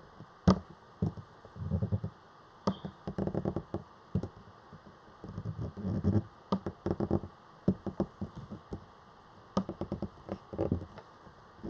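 Irregular clicking and knocking: scattered sharp clicks, some in quick runs, mixed with soft low thumps.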